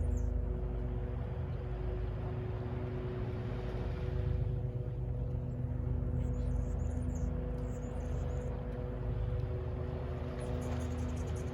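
Steady low rumble of distant city traffic with a constant droning hum, and a few brief high chirps partway through and near the end.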